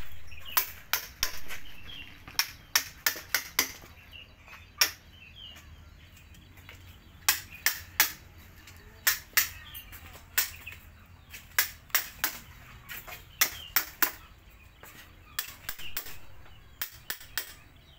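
A round-headed mallet striking a wood chisel as it cuts into a teak root: sharp knocks in irregular quick runs of a few strikes, a few dozen in all. Birds chirp faintly between the strikes.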